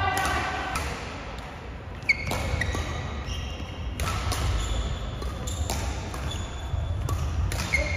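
Badminton rally: sharp racket-on-shuttlecock hits, roughly one every half-second to second, the loudest about two seconds in, mixed with short high squeaks of court shoes on the floor.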